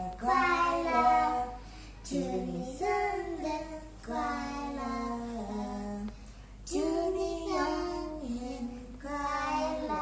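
A young boy singing a birthday song unaccompanied, in short held phrases with brief pauses between them.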